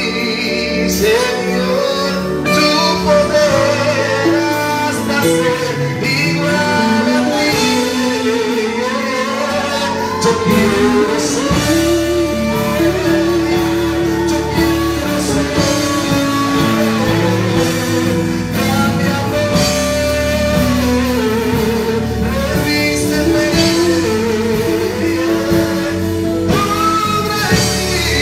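Live Christian worship song: a man singing into a microphone over a band of electric guitar, keyboard and drums.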